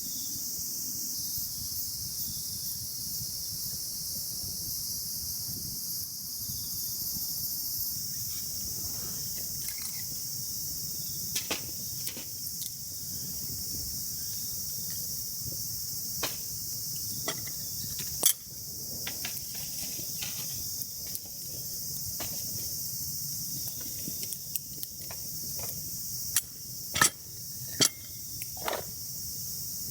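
Steady, high chirring of an insect chorus, with scattered sharp clicks and knocks, a few of them loud in the second half.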